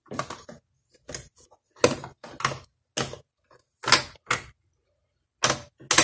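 Uneven run of short plastic clicks and knocks as the brush rolls and the hinged brush guard are fitted back into the underside of a Roomba 676 robot vacuum.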